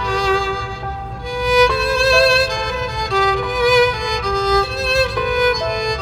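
Background music: a violin melody of slow, held notes with a slight vibrato.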